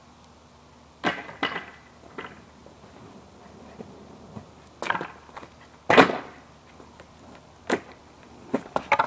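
Skateboard deck knocking and clattering on the ground in a series of about eight sharp hits as the trick is done, the loudest about six seconds in.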